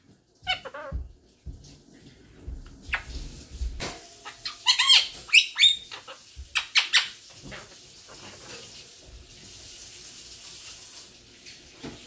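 Blue Quaker parrot (monk parakeet) talking in a high, squeaky mimic voice, a run of short phrases such as "peek-a-boo" and "what you doing", with the loudest calls a little past the middle.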